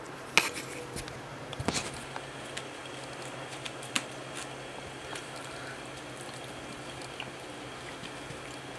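Steady low room hum with a few scattered taps and knocks, the sharpest about half a second in and a short cluster near two seconds in.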